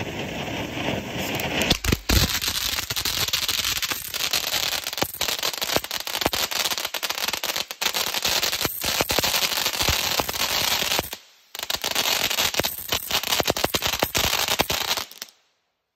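Warrior Fireworks Fury Fountain, a ground fountain firework, spraying sparks with a steady hiss thick with rapid crackling pops. The sound drops out briefly about two-thirds of the way through and stops suddenly near the end.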